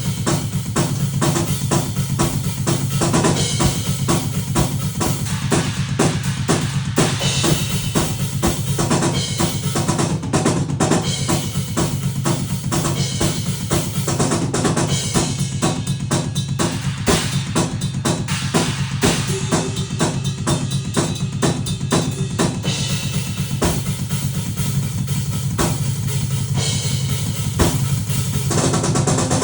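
Fast, dense drum-like percussion beat running without a break over a steady low drone.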